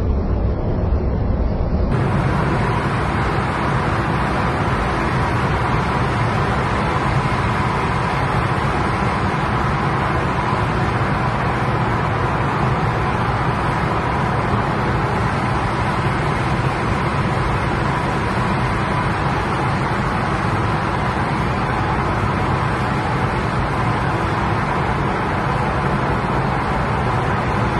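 Steady road noise inside a car's cabin as it drives through a highway tunnel: tyre and engine drone with a thin, steady whine, unchanging throughout.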